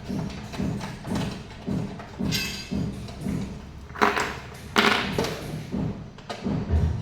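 Background music with a steady thumping beat, about two beats a second, and two short loud crashes about four and five seconds in.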